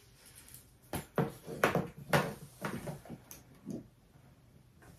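Metal clasps of a black leather shoulder strap clicking and knocking against the hardware of a Louis Vuitton Vendôme BB handbag as the strap is clipped on: a run of small clicks starting about a second in and lasting about three seconds.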